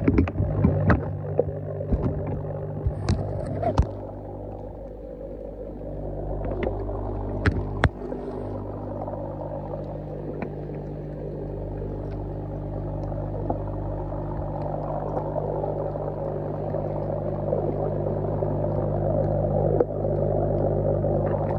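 Underwater sound in an aerated goldfish tub: air-stone bubbling over a steady low hum, with scattered sharp clicks, most of them in the first few seconds and a couple more around seven to eight seconds in.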